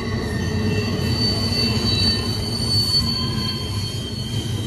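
Double-stack intermodal freight train rolling past: a steady rumble of wheels and cars, with high-pitched wheel squeal held over it and loudest about two seconds in.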